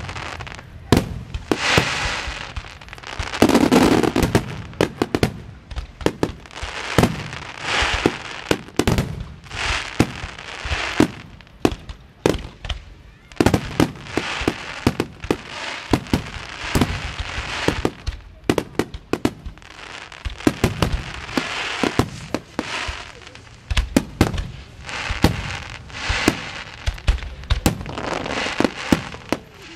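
Beehive rockets and firecrackers going off: a dense, irregular run of sharp bangs and crackles, with repeated hissing swells of one to two seconds as volleys of rockets fly.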